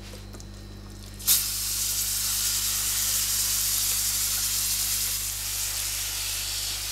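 Mushroom, onion and garlic paste dropping into hot olive oil in a frying pan about a second in and sizzling steadily as it fries.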